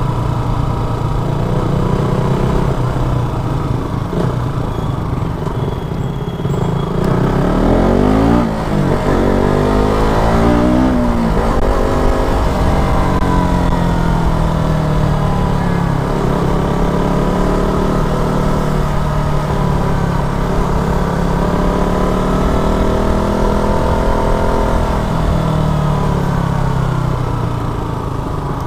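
Single-cylinder engine of a KTM RC 200 sport motorcycle running under way, its pitch rising and falling with the throttle. About eight to eleven seconds in, it revs up and down several times in quick succession.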